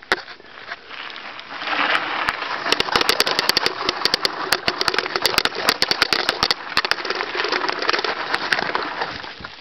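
Small two-stroke motorized-bicycle engine running while the bike rides a rough trail, with loud clattering and rattling from the bumps. The noise builds about one and a half seconds in and eases off near the end.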